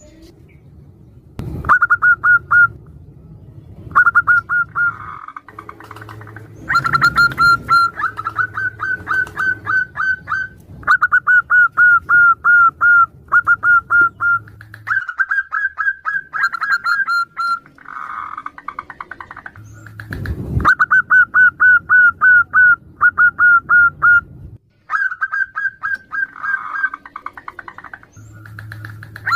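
Zebra doves (perkutut) calling back and forth: runs of short, rapid staccato coo notes, each run lasting one to three seconds, repeated throughout, with a few lower, softer calls between. Two brief low thumps break in, one near the start and one about two-thirds through.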